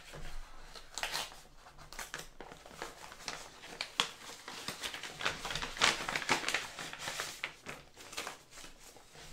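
Paper leaflets and wrapping paper from a laptop box rustling and crinkling as they are handled, in irregular crackles, loudest a little past the middle.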